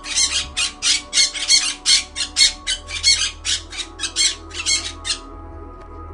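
A bird squawking harshly in a rapid series, about three or four calls a second, stopping about five seconds in.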